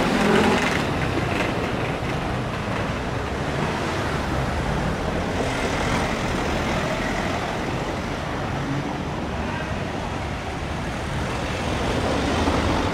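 City street ambience: a steady rumble of road traffic with faint voices of passers-by.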